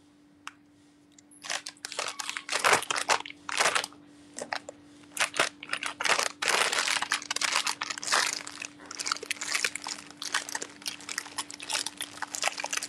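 Plastic food wrapper crinkling and crackling close to the microphone as it is handled, starting about a second and a half in and going on in irregular bursts.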